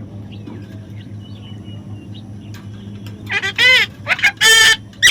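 A bird giving a quick run of loud, harsh calls starting about three seconds in, after a stretch of faint short chirps over a steady low hum.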